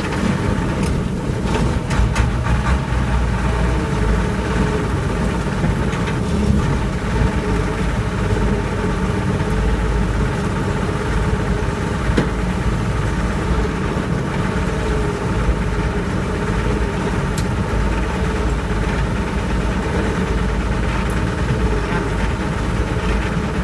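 Truck engine running steadily at low speed as the truck creeps over a rough dirt field, heard from the cab, with a few light knocks from the vehicle.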